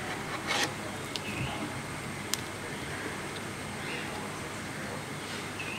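A few faint clicks and rustles from wire leads being handled and touched to a battery's terminals, over a steady low hiss.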